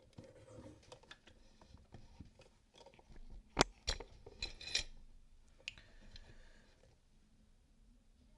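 A small metal lever locker lock being handled and clamped in a bench vise: scattered metallic clicks and rattles, with two sharp clicks about halfway through and a quick cluster just after.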